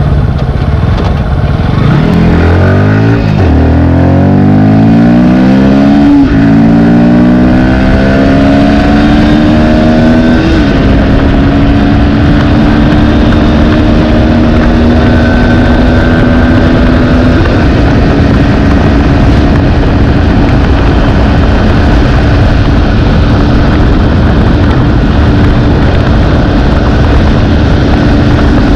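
Bajaj Pulsar NS160 BS6's single-cylinder engine under full-throttle acceleration during a top-speed run. Its pitch climbs steeply, breaking at each upshift, then levels off and holds steady at high speed, with heavy wind rush throughout.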